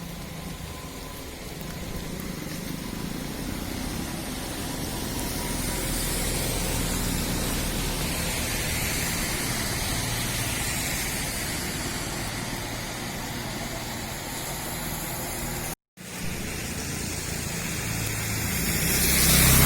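Steady monsoon rain falling, a hiss of water with a low rumble beneath it. It swells louder twice, most strongly near the end, and cuts out for a moment about two thirds of the way through.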